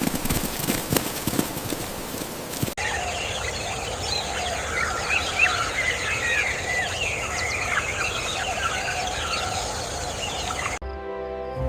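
Rainforest bird chorus: many birds chirping and calling at once over a steady high hiss, after a few seconds of rough rustling noise. Music takes over near the end.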